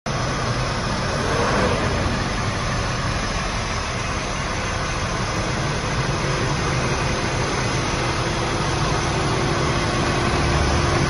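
Volvo A35F articulated dump truck's diesel engine idling steadily.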